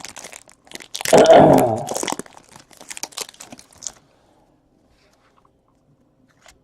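Trading card packs and wrappers being handled: crinkling and tearing, with one loud crunch about a second in. The crinkling stops about four seconds in.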